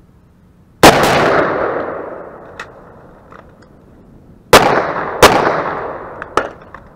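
AR-15 rifle firing four shots: two in quick succession about a second in, then two more about three and a half seconds later, under a second apart. Each shot trails a long fading echo, with a few faint clicks in between.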